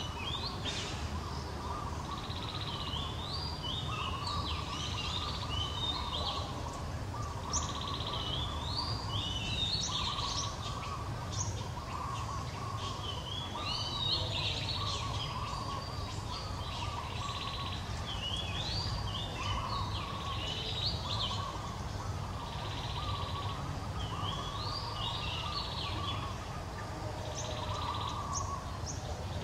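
A songbird singing short, stepped chirping phrases, repeated every two or three seconds, over a steady low background noise.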